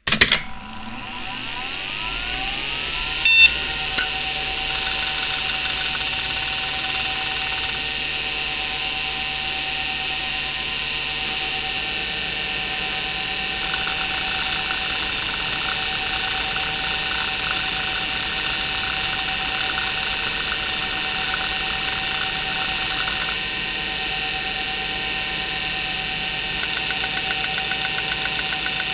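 Maxtor 8051A 3.5-inch IDE hard drive powering up: the spindle motor spins up with a rising whine, the heads click twice, and then the platters settle into a steady whine that the owner puts down to poor bearings. From about five seconds in, several stretches of rapid, even head-seek chatter come and go while a benchmark tests the drive.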